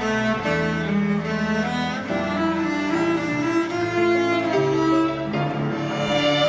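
Violin ensemble playing an instrumental interlude of the hymn: several bowed string parts holding long notes and moving from note to note together.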